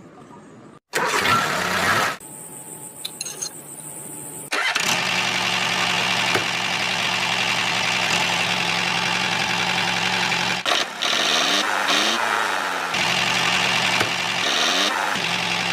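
Mini model tractor's motor running steadily, after a few short broken-off snatches of sound in the first seconds, with the pitch wavering up and down a few times near the end.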